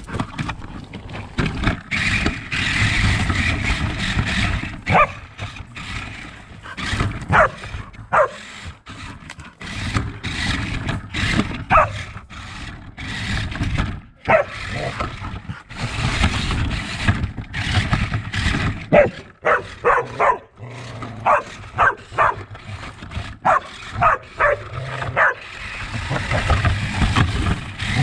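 A dog barking and yipping over and over, short high-pitched calls coming in quick runs, some close together.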